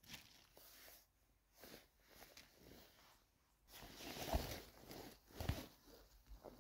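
Faint rustling and crunching of mushroom picking on the forest floor, with two louder thumps about four and five and a half seconds in.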